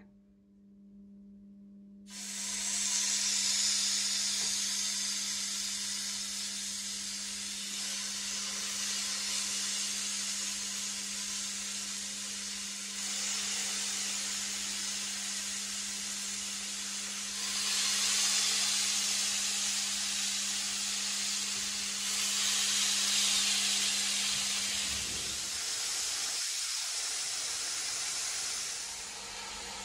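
Marinated chicken skewers sizzling on the hot ribbed plate of an electric contact grill, starting about two seconds in and growing louder twice further on. A steady low hum runs underneath until near the end.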